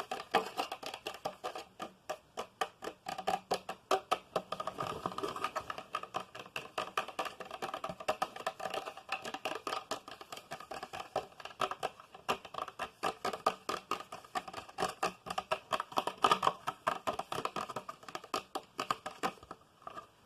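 Rapid ASMR tapping: quick, continuous taps, several a second, with no let-up, stopping near the end.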